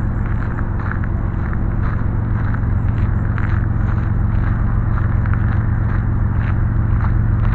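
Freight train of coal hopper cars rolling past: a steady heavy rumble of wheels on rail, with irregular clicks and rattles throughout.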